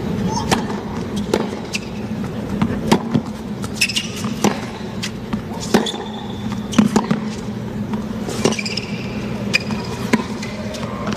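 Tennis ball struck back and forth with rackets in a baseline rally on a hard court, sharp hits roughly a second apart, with short sneaker squeaks on the court and a steady murmur from the stadium crowd.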